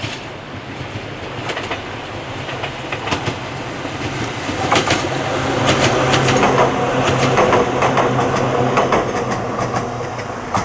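Ohmi Railway electric train passing, its wheels clattering in a regular rhythm over the rail joints. The clatter and motor hum build to their loudest about halfway through, then ease off.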